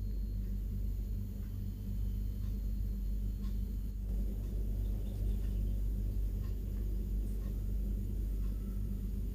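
Steady low hum of room tone, with a few faint soft ticks.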